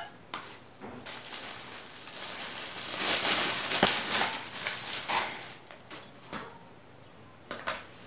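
Clear plastic bag crinkling and rustling as a desk lamp is pulled out of it, loudest in the middle, with a few sharp clicks and knocks from the lamp's parts.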